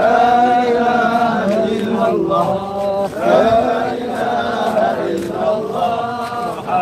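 A crowd of men chanting together in drawn-out, sung phrases, with short breaks between phrases.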